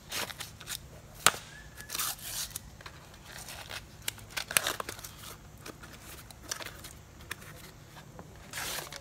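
Small cardboard parts box being pried and torn open with a screwdriver: irregular crinkling and tearing with sharp clicks, the sharpest a little over a second in.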